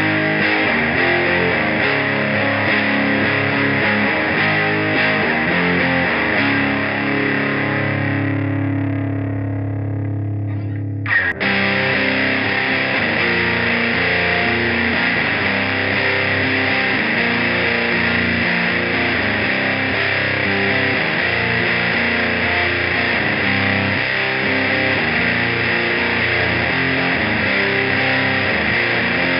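Heavily distorted electric guitar playing a crushing alt-rock riff through drive and fuzz pedals. Partway through, a chord is left ringing and fading, then a sharp attack brings the riff back in.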